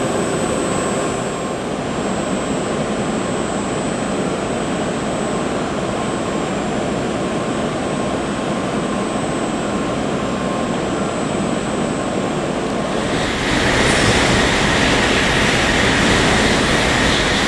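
Steady running hum of an N700S Shinkansen train standing at the platform with its doors open. About 13 seconds in, a louder rushing noise rises and holds for the last few seconds.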